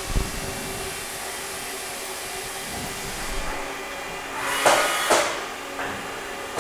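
2012 Haas VF-4 CNC vertical machining center running a cycle: a steady machine hum, a thump just at the start, and a sharp burst of hissing air about four and a half seconds in, lasting under a second.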